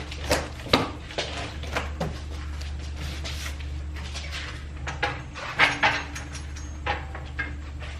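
Scattered knocks and clunks of a boxed washing machine being tilted and shifted onto a metal hand truck, with a steady low hum underneath.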